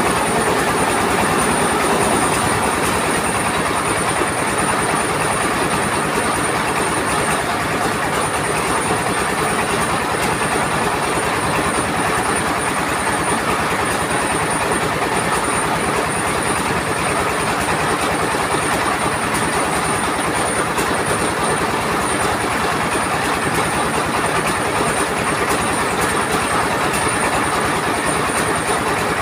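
Mobile rice mill running: a stationary diesel engine belt-driving the rice huller and polisher, a loud, steady mechanical clatter over a fast, even engine pulse, with a steady high whine.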